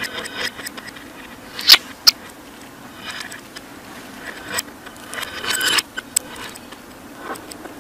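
Budgerigar chattering softly with scattered clicks and brief chirps, two sharper clicks coming about two seconds in.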